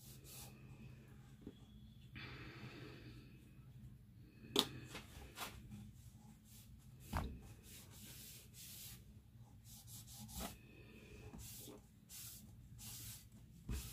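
Damp cloth rubbing over a painted wooden board in faint, uneven strokes, with a few light knocks.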